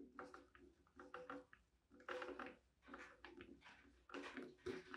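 Faint turns of a Phillips screwdriver driving a polished steel screw into a wooden saw handle: short, irregular scraping and creaking strokes, about two a second, as the screw bites into the wood.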